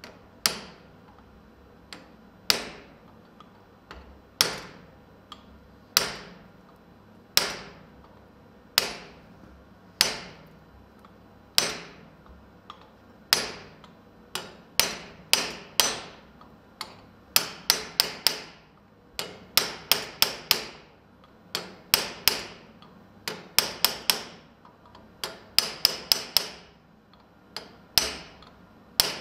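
A hammer striking a hand-held chisel on hot steel at the anvil, sharp metallic taps each with a short ring, as the chisel cuts detail into the steel. The blows come about one every second and a half at first, then in quicker groups of two and three.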